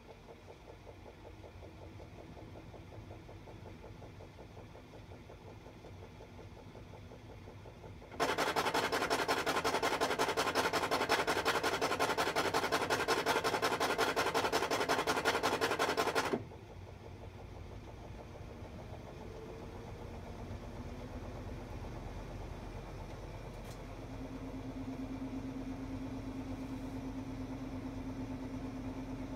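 Hitachi BeatWash BW-8HV washing machine spinning, with a loud rapid rattling noise that starts suddenly about eight seconds in and cuts off just as suddenly about eight seconds later. This is the abnormal noise that the machine makes at medium spin speed after ten years of use. Afterwards the spin continues as a hum whose tone rises and then holds steady.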